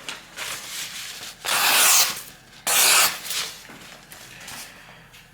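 Sharpness test of a freshly sharpened kitchen knife: two loud scraping slicing passes, each under a second long, about a second apart, after some fainter light strokes.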